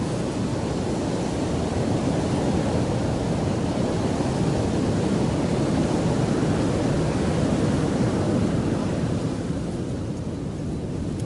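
Steady rushing noise of surf on the beach, mixed with wind on the microphone, swelling slightly and easing a little near the end.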